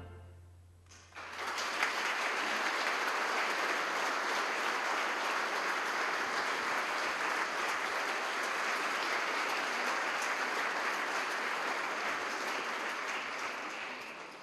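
The band's last chord fades away, and about a second in an audience breaks into steady applause, which cuts off suddenly near the end.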